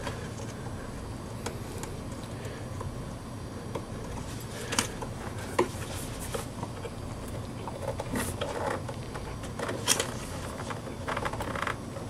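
DDR2 SO-DIMM memory modules being thumbed into a mid-2007 iMac's memory slots: a few scattered small clicks and snaps as they seat and latch, with a steady low hum beneath.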